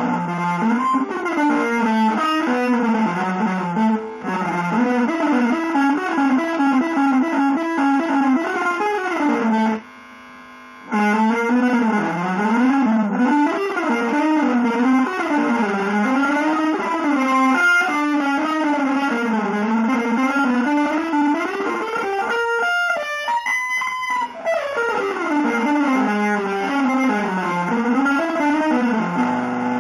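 Electric guitar playing fast, winding runs of notes that climb and fall, with a short break about ten seconds in and a stretch of quickly repeated notes about three quarters of the way through.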